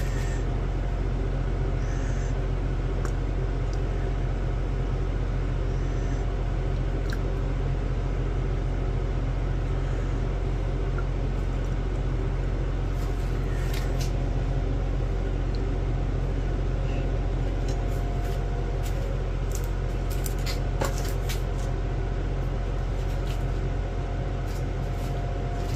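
Steady low machine hum that does not change, with scattered light clicks and taps, more of them in the second half.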